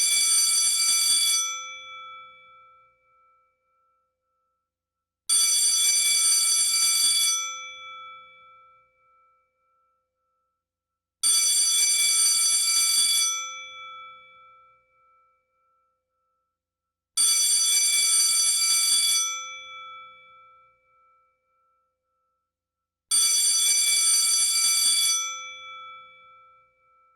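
School bell ringing five times, about six seconds apart. Each ring lasts about two seconds, then dies away over a couple of seconds.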